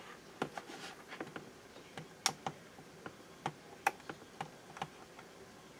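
A dozen or so irregular sharp clicks and taps from handling alligator test clip leads and a small capacitor on a workbench.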